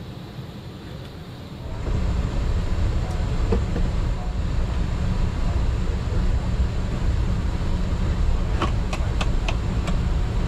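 A steady low rumble of a moving vehicle starts abruptly about two seconds in. A few sharp clicks follow near the end.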